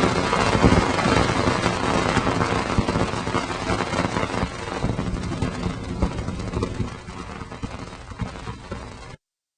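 Audio converted from spacecraft data: a dense rumbling, crackling hiss that gradually fades and then cuts off abruptly near the end.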